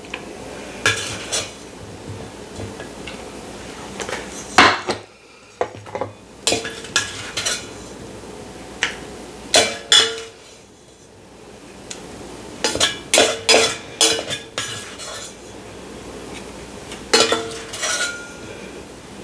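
A spatula clinking and scraping against the Ninja Combi's cooking pot and a plate as food is dished up: irregular clusters of clinks and clatters, some with a short ring.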